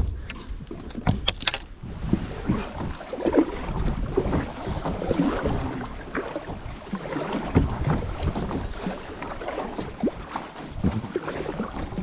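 Water sounds and knocks around a kayak: irregular splashes and hollow bumps against the plastic hull, with a few sharp clicks about a second in.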